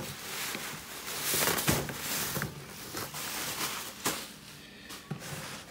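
Plastic bubble wrap rustling and crackling as a solar panel is slid out of it. A few sharp knocks come as the panel is handled on the cardboard, about a third of the way in, halfway and near the end.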